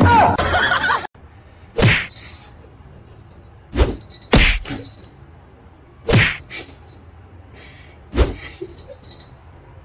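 A series of short, dull knocks, five in all, spaced about two seconds apart. They come after a brief burst of other noise in the first second.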